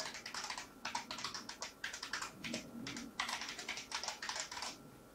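Fast typing on a computer keyboard: quick runs of keystroke clicks as a modem dial command is typed in, stopping near the end.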